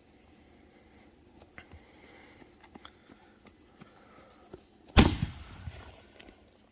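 Crickets chirping in a steady, rapid pulse, then about five seconds in a single loud bang as the first 5-inch 60-gram Death Shell artillery canister is fired, fading away over about a second.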